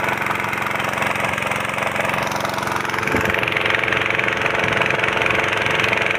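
Small engine of a portable motor pump running steadily, driving water through the hose to irrigate.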